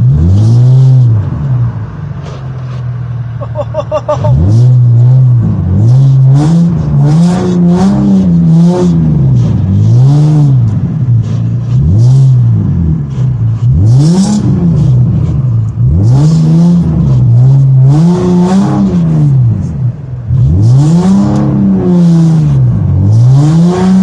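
Nissan 350Z's 3.5-litre V6 revving up and falling back again and again, each rise and fall lasting about a second or two, heard from inside the cabin.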